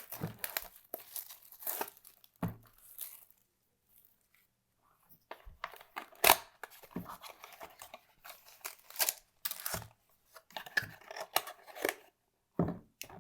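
Packaging being torn open and crinkled as a mini box of trading card packs is opened and the packs are taken out. The sound comes in irregular bursts with a quiet pause about three to five seconds in. A sharp rip about six seconds in is the loudest, and there is a soft knock near the end.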